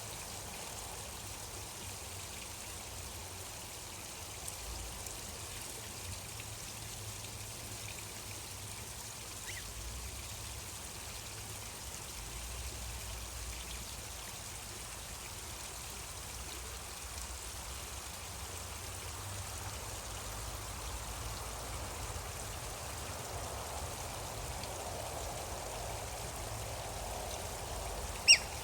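Steady gentle flow of a stream, an even rush of running water. Near the end a single short, sharp, high chirp cuts in.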